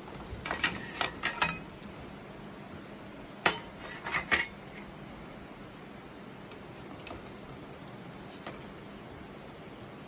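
Metal grill utensils clinking and clattering as they are handled, in two short bursts about three seconds apart, then a few faint clicks.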